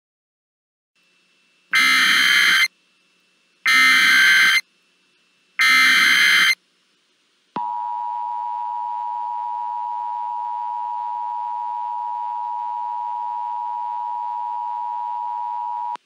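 Emergency Alert System broadcast tones: three short bursts of the digital SAME header data, about two seconds apart, then the steady two-note EAS attention tone starting about halfway through and holding.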